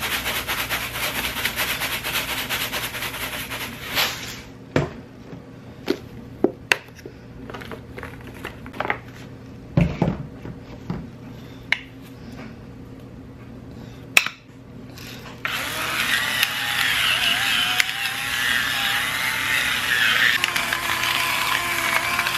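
Dried minced onion shaken from a plastic spice jar into a pan, a dense hiss that stops abruptly about four seconds in; then scattered clicks and knocks of jars and lids being handled. From about fifteen seconds in, a battery-powered spice grinder's small motor whirs steadily, grinding seasoning over the pan.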